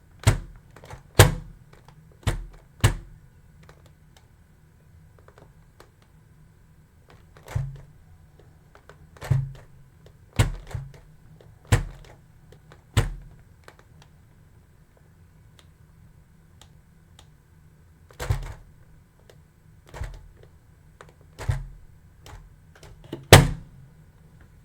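Single hard taps and thunks, one at a time at uneven intervals, in loose clusters separated by gaps of several seconds, each short and sharp with a dull low thud beneath it.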